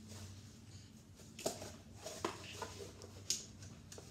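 Pen drawing on a cardboard box: a few short, faint scratching strokes over a low steady hum.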